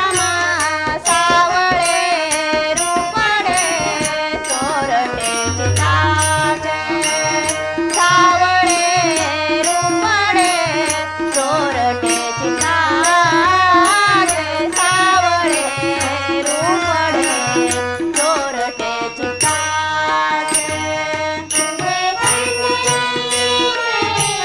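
Marathi devotional abhang music: a wavering melody line over a steady, regular drum beat.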